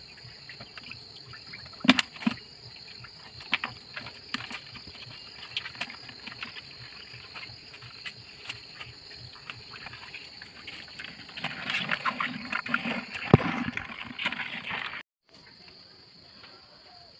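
Steady high chirring of insects, with scattered knocks and rattles from a woven fish trap being shaken out over a plastic bucket, busiest near the end.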